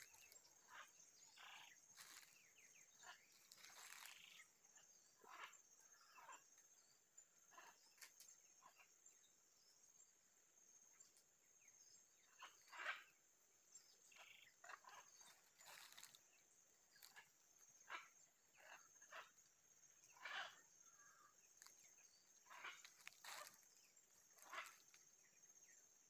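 Faint, brief animal calls scattered every second or so, a few of them louder, over a faint steady high-pitched tone.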